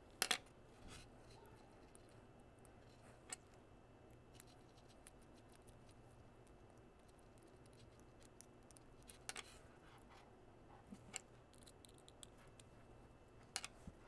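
Small metal clicks and taps from a precision screwdriver working the screws of a metal connector backshell's strain relief clamp, a few sharp clicks spread out over near silence, the loudest a double click right at the start and another near the end.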